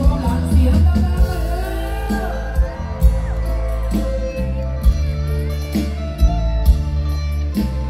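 Live Thai mor lam band music, loud through the stage speakers, with a steady bass and drum beat. A voice sings a wavering melody over it for the first few seconds.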